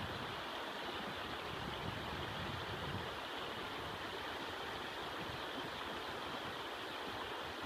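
Shallow, stony river running over gravel and rocks: a steady rush of water.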